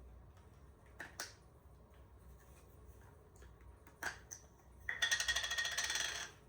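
Handling of camera lenses and gear: a few sharp clicks, then a rapid rattling, buzzing burst lasting just over a second near the end.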